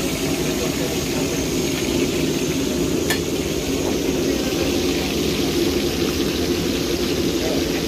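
Hilsa fish pieces deep-frying in a wide pan of hot oil: a steady sizzle over a constant low rumble, with one sharp click about three seconds in.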